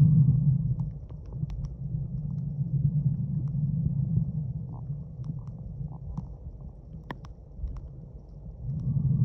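Underwater ambience through a submerged camera microphone: a muffled low rumble of moving water that swells at the start and again near the end, with scattered sharp clicks and crackles, the strongest about seven seconds in.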